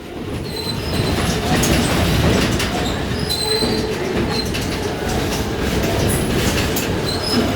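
Passenger train cars rolling along the track with a steady rumble of wheels on rail, and several short high-pitched wheel squeals.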